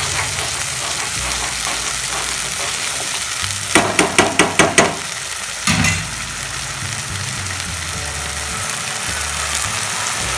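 Thick Schezwan chutney paste of chillies, garlic and ginger sizzling steadily in oil in a pan as it fries and is stirred. About four seconds in comes a quick run of about six sharp knocks, then one more a second later.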